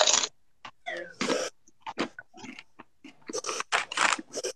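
Several people crunching and chewing Paqui One Chip Challenge tortilla chips, as irregular short crackles, thickest near the end.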